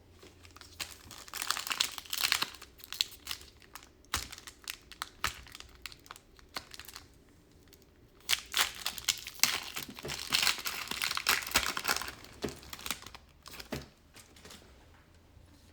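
A trading-card pack wrapper being torn open and crinkled by hand. There are two spells of crinkling and tearing, about a second in and again around eight seconds in, with scattered light crackles between them.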